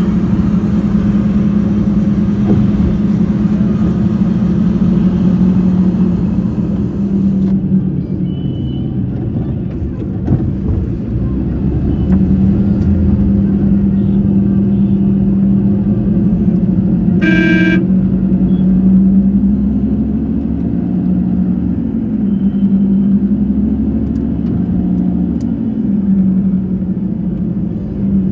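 Road traffic heard from inside a moving car: a steady engine hum over tyre rumble, with one short horn toot a little past halfway. Near the end the engine note rises and falls.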